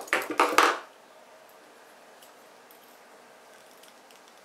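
Metal jewellery pliers clinking and clattering against each other and the table as a pair is picked up, a quick cluster of knocks within the first second. After that only a few faint ticks.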